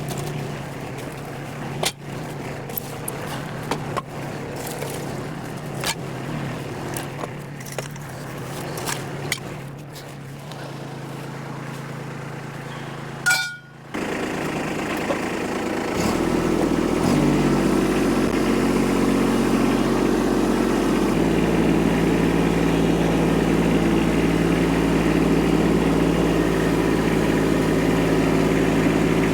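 A vehicle engine running steadily, with scattered clinks and rattles over it. After a sudden break about halfway through, an engine runs louder and steps up in speed twice, then settles into a steady run.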